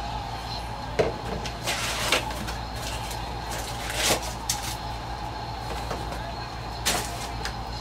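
Trading card boxes and packs being handled and opened: a few sharp clicks and crinkling rustles of packaging, the longest about two seconds in, over a steady background hum.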